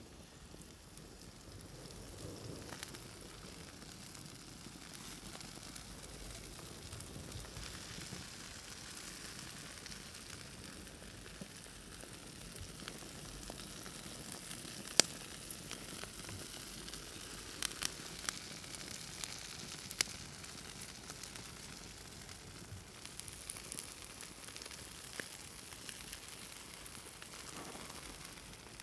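Pork steak sizzling on a hot grill grate over a wood fire, a steady hiss with a few sharp crackles and pops around the middle.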